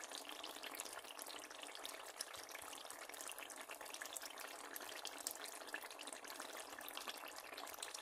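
Pot of green beans and potatoes in broth simmering: a faint steady bubbling with fine crackles.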